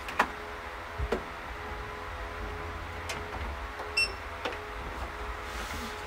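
Steady hum of warehouse machinery, with a few light knocks and clicks as items are handled at a picking cart. A short high electronic beep sounds about four seconds in.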